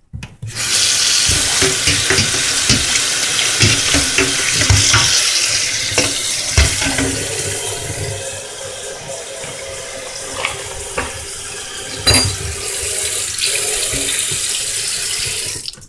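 Kitchen tap running into a bowl of raw meat in the sink as the meat is rinsed, with a few sharp knocks along the way. The water starts about half a second in and stops near the end.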